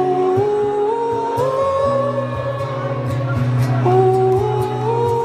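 Live strummed acoustic guitar with a wordless sung melody over it, held notes climbing in steps, then starting again lower about four seconds in and climbing once more.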